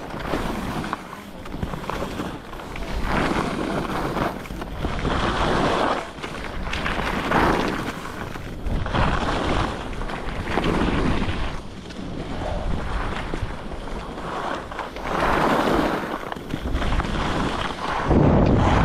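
Skis running down a groomed piste, the edges scraping over packed snow in a hiss that swells with each turn every few seconds, mixed with wind rushing over the microphone.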